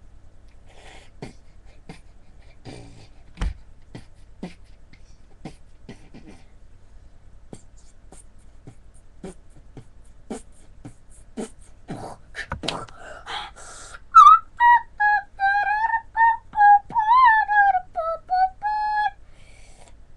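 Beatboxing: sparse mouth-percussion clicks and kick-like strokes that get busier around twelve seconds in, then a louder, high, wavering pitched melody in short pulses for about five seconds near the end.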